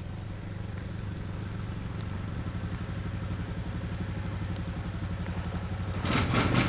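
Four-wheeler (ATV) engine idling with a steady, rapid pulsing note, growing much louder about six seconds in.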